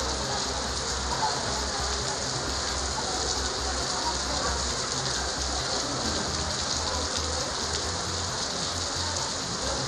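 Heavy rain falling steadily on a street.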